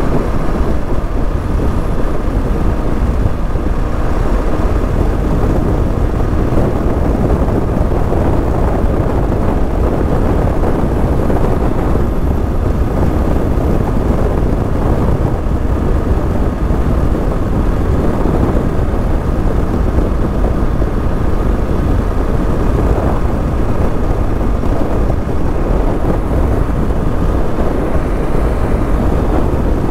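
Steady driving noise of a vehicle at road speed: a constant low rumble of engine, tyres and wind with no breaks.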